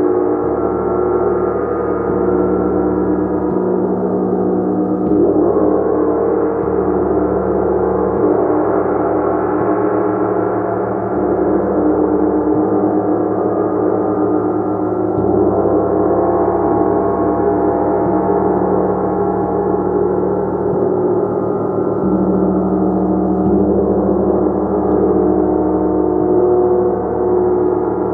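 Gong played continuously: a loud, sustained wash of many overlapping ringing tones, with no breaks.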